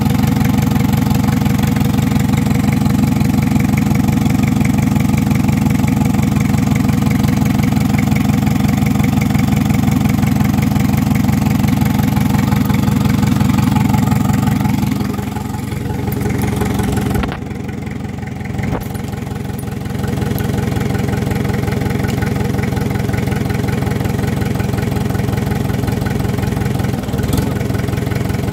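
Isuzu C240 four-cylinder diesel engine idling steadily. Just past the middle its sound drops and goes quieter for about five seconds, with a click in the dip, then returns to the same steady idle.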